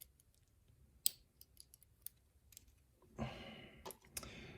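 Small sharp clicks and ticks of a disassembled pin-tumbler lock's pins and metal tools being handled on a desk, spaced irregularly. About three seconds in comes a longer, softer rustling sound.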